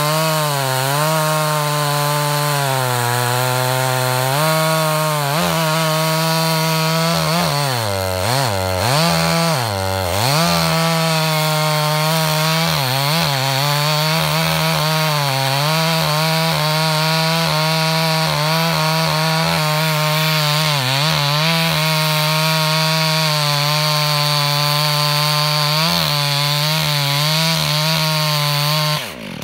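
Freshly overhauled Husqvarna 254XP two-stroke chainsaw with an 18-inch bar and .325 chain, running at full throttle while cutting through a 25-inch sugar maple log. The engine pitch dips and recovers again and again as the chain loads up in the wood, most deeply about eight to ten seconds in, and it falls away as the throttle is released right at the end.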